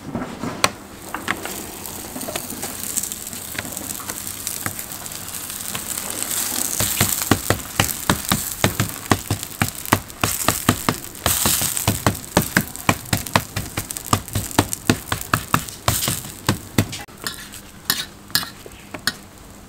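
Rougamo flatbread dough frying in oil on a flat iron griddle, sizzling steadily. From about seven seconds in come many sharp clicks and pops.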